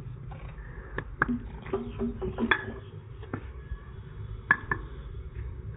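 Mason's hand tool tapping clay bricks as they are bedded into wet mortar: several sharp, irregularly spaced clinks and knocks.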